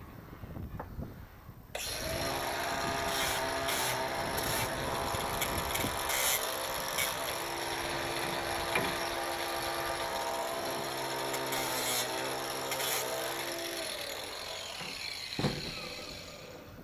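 An electric power tool starts about two seconds in and runs steadily with a motor whine and grinding hiss for some thirteen seconds, its pitch wavering as load comes on and off, then stops; a single knock follows.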